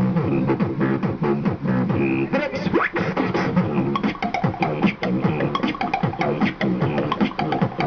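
A beatboxer performing into a handheld microphone: fast, rhythmic mouth percussion layered with a sustained hummed vocal tone, several sounds made at once by one voice. A rising vocal glide comes about three seconds in.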